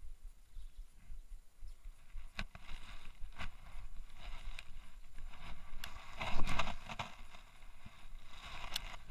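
Handling noise from a baitcasting reel (Shimano Curado) being cranked and a rod being worked: uneven rustling with scattered small clicks, and one louder rushing burst about six and a half seconds in.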